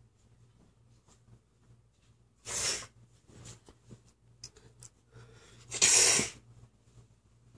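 Two short breathy bursts of noise about three seconds apart, the second louder and longer, against a quiet room.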